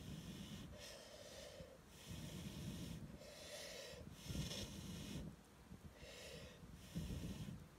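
Heavy rhythmic breathing, a hissing rush roughly every second, about six breaths in all.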